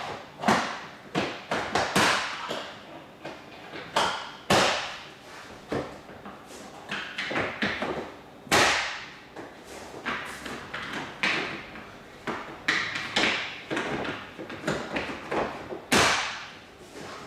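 ABS plastic interlocking floor tiles being laid: a string of irregular hollow clacks and knocks as tiles are set down and pushed onto their interlocking clips, with a few louder thuds among them.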